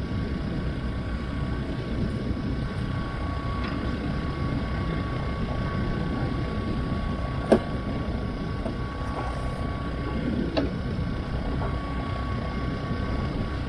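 A portable generator runs steadily, charging the trolling-motor battery, with a constant hum and a thin high tone over it. Two sharp knocks come about seven and a half and ten and a half seconds in.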